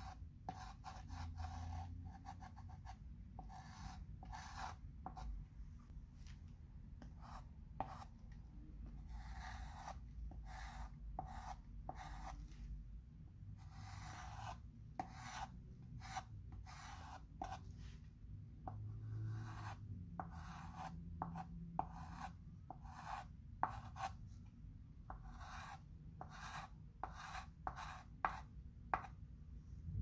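Chalk pencil scratching on a chalkboard in many short, irregular strokes, tracing over written letters.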